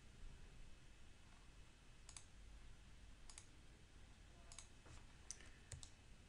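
Faint computer mouse clicks, about half a dozen spaced irregularly from about two seconds in, over quiet room tone.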